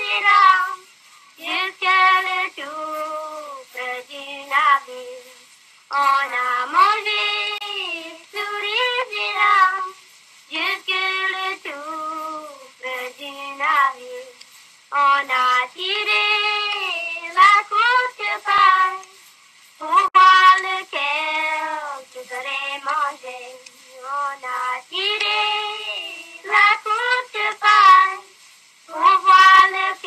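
A high, child-like voice singing short phrases of gliding and held notes, with brief pauses between them.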